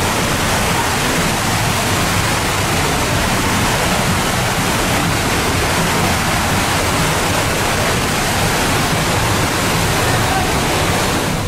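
FlowRider surf simulator's thick sheet of pumped water rushing steadily up and over the ramp.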